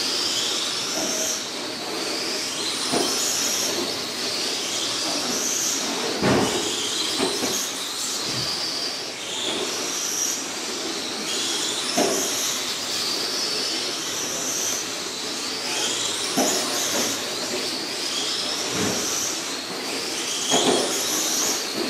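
Several electric 1/10-scale RC race cars (Slash Street Stock class) running laps on a dirt oval, their motors whining up and down in pitch as they speed up and slow through the turns. A few sharp knocks cut through, the loudest about six and twelve seconds in.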